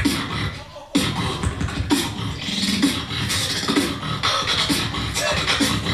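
Solo beatboxing: a dense, fast beat of mouth-made kick drums, snares and hi-hats. It thins out briefly and the full beat comes back in sharply about a second in.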